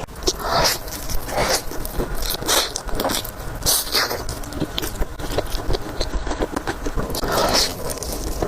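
Close-miked eating sounds: wet chewing and biting of spicy noodles and dumplings, with a run of short noisy mouth sounds about a second apart.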